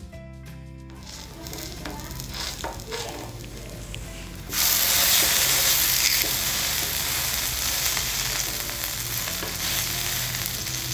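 Ragi adai dough being patted out by hand on a hot dosa griddle: quiet at first, then about four and a half seconds in a loud, steady sizzle starts as fresh wet dough goes onto the hot surface.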